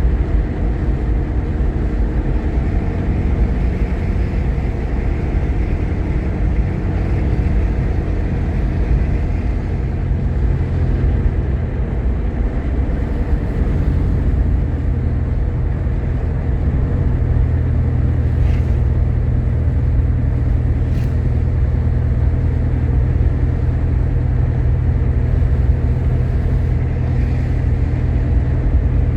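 Steady engine and road rumble of a Jeep Grand Cherokee's 3.7-litre V6 while driving, heard from inside the cabin. The low engine note grows a little stronger and steadier a bit over halfway through.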